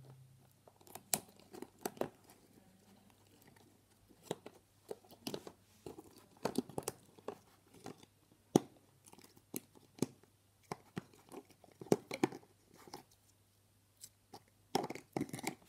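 Close handling noise: irregular sharp clicks and crackles, a few each second, with a denser crackling burst near the end.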